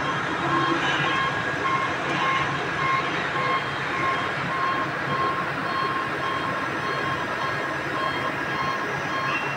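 Electronic warning beeper on an XCMG 250-ton crawler crane sounding in a steady string of short beeps, about two a second, over the running of the crane's engine.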